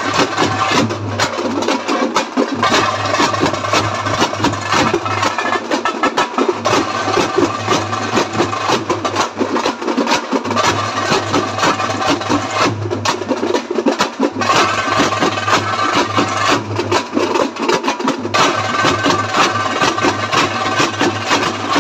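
Fast, continuous drumming on hand-held frame drums, a dense run of rapid strokes. A low steady hum lies underneath and drops out every few seconds.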